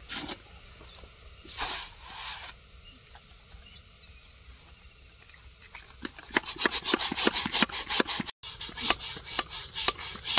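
Vinyl of a deflated inflatable boat swishing as it is shaken out and spread, then from about six seconds in an air pump inflating the boat through its valve, with rapid, rhythmic strokes several times a second.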